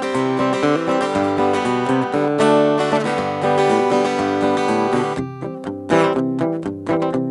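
Cort AD810 OP steel-string acoustic guitar being strummed in full chords, changing about five seconds in to sparser separately picked notes and chord hits.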